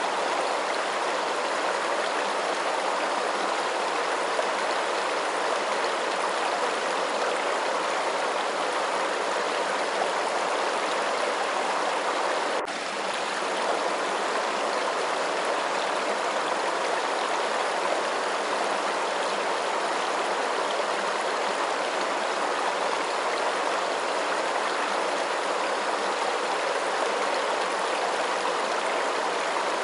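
Steady running water, an even continuous rush with no change in flow, with a brief dip in level about a third of the way in.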